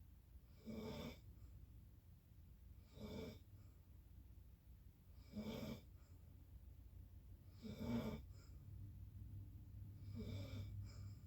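A sleeper snoring faintly: five short rasping snores, one on each breath, about every two and a half seconds. A low steady hum comes in about two-thirds of the way through.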